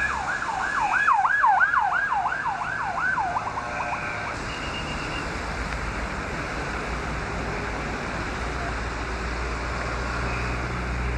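Emergency vehicle siren on a fast yelp, sweeping up and down about three times a second, then cutting off about three and a half seconds in. Steady road and wind noise follows.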